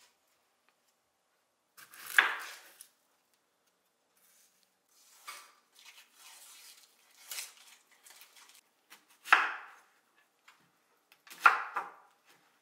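A chef's knife cutting through an onion onto a wooden cutting board, in several separate cuts a few seconds apart. Fainter rustling of dry onion skin being peeled comes in between.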